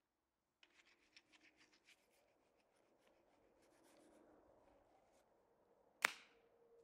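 Faint scraping of a bull float's blade over wet concrete, first in quick short strokes, then as a smoother rub that builds as it is pushed across the slab. Near the end a single sharp knock, the loudest sound, leaves a ringing tone.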